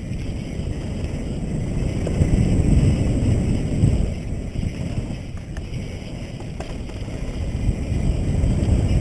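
Wind rushing over a helmet-mounted action camera on a mountain bike descending a dirt trail at speed, with tyre rumble. It swells and eases as the bike speeds up and slows. There are a couple of faint ticks a little past halfway.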